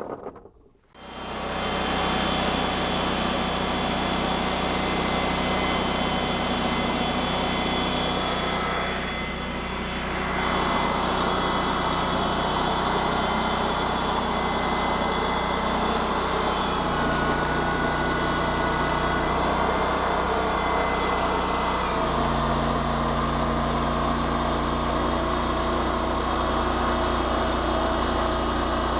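Timber King 2000 portable band sawmill's engine running steadily while milling a log into slabs. It starts abruptly about a second in, dips briefly around a third of the way through, and its pitch shifts about two-thirds through.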